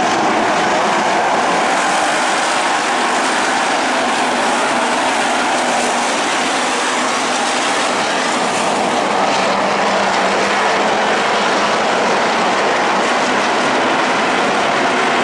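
A field of dirt-track race cars running around the oval, their engines blending into one steady, loud drone with no single car standing out.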